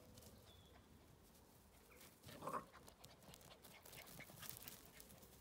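Quiet open-air background with one short animal call a little over two seconds in, and faint rustling after it.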